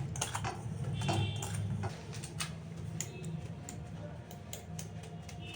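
Small sugar-coated ginger candies being put into a container: a run of light, irregular clicks and taps, some with a brief ring.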